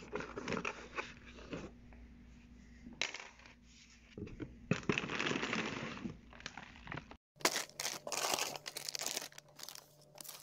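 A cardboard box is slit open with a knife, with clicks, taps and scraping of the cardboard flaps. In the last few seconds, plastic bags of frozen pieces crinkle as they are handled.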